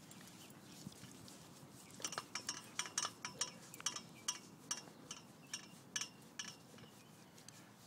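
A quick run of light metallic clinks, starting about two seconds in, about three a second at first and slowing until they stop near the end.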